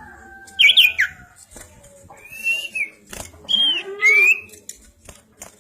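Common iora (cipoh) singing: a run of clear whistled notes, several sliding up and arching over, some quick and high, with short clicks in between.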